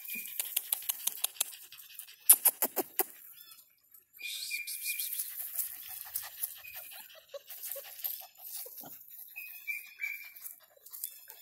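Puppies playing in dry grass right at the phone's microphone: scratchy rustling and handling noise, with a quick run of loud sharp clicks about two seconds in. A few short high calls sound over it.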